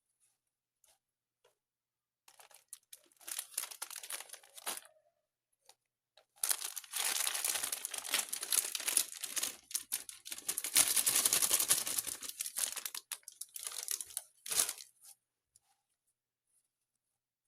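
Crinkling and crackling handling noise in two stretches, a short one and then a longer, louder one of about eight seconds.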